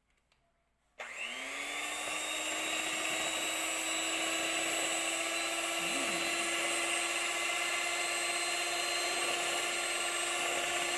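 Electric hand mixer switched on about a second in, its motor spinning up to a steady whine as the beaters whip egg whites for a meringue.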